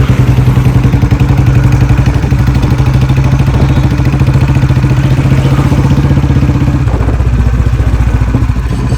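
Royal Enfield Bullet's single-cylinder engine running steadily with a rapid, even beat, easing slightly about seven seconds in. It is the engine whose owner complains of a bad tick-tick noise.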